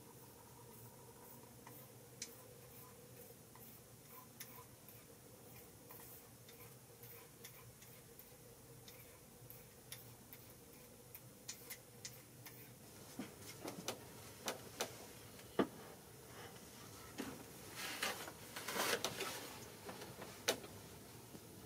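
Scattered light clicks and taps of small objects being handled, sparse at first and coming thicker in the second half, with a short rustling stretch about eighteen seconds in.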